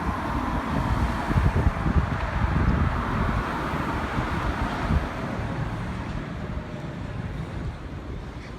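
Wind buffeting the microphone over the sound of road traffic, a passing car's noise fading away over the last few seconds.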